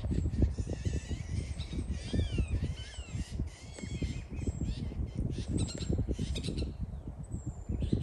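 Wild birds calling up in the tree canopy: a run of rising and falling calls in the first half, and short, thin high notes repeating now and then. Low rumbling noise on the microphone runs underneath.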